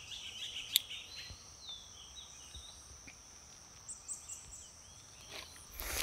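Quiet woodland ambience: a steady, high-pitched insect drone with scattered bird chirps, and a single sharp click under a second in.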